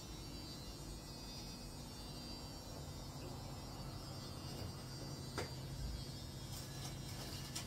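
Low steady electrical hum, with one short squeak a little past halfway and a few light ticks near the end.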